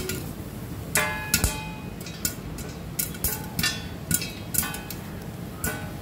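Popcorn kernels popping in a pot covered with a stainless-steel plate: about a dozen sharp, irregular pops. Many of them ring briefly as kernels strike the metal plate.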